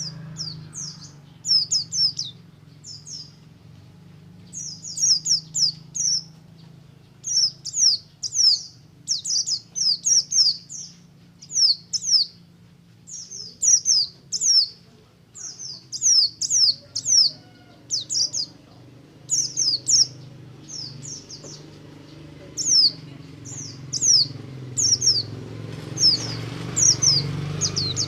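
Buxtomi-type pleci (white-eye) singing its fast 'ngalas' song: short bursts of two to five quick, high, downslurred chirps, one burst after another with brief gaps. A faint steady low hum runs underneath.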